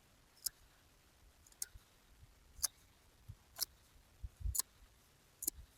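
A knife blade cutting small edges into a wooden hand-drill spindle: short, sharp clicks about once a second.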